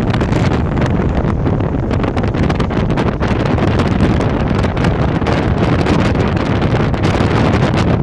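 Gale-force prairie wind, sustained above 100 km/h, buffeting the microphone: a loud, deep, unbroken noise that flutters and surges constantly without letting up.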